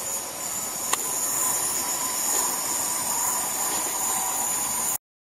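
Class 323 electric multiple unit approaching round a curve, its wheels squealing against the rails in a steady high-pitched whine over the running noise of the train. A sharp click comes about a second in, and the sound cuts off suddenly near the end.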